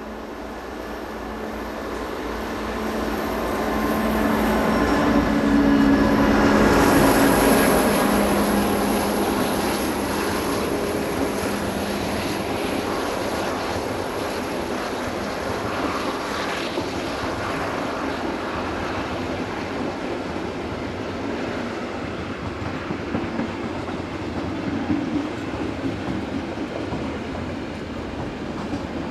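Diesel-hauled freight train passing: the red diesel locomotive's engine grows louder as it approaches and goes by about seven seconds in, then a long line of freight wagons rolls past with a steady wheel rumble and a few clacks near the end.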